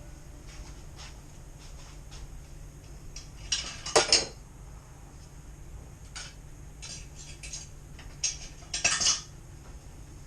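Kitchen utensils and cookware clinking and knocking: two loud clusters of clatter, about four seconds in and again near nine seconds, with lighter scattered ticks between.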